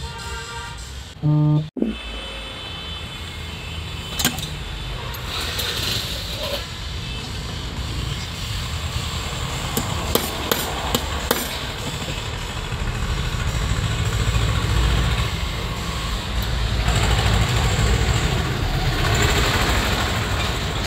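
Steady low rumble of motor vehicles running, under a few sharp metallic clinks of hand tools on an alternator being dismantled. About a second in, a short, loud horn-like tone sounds and cuts off abruptly.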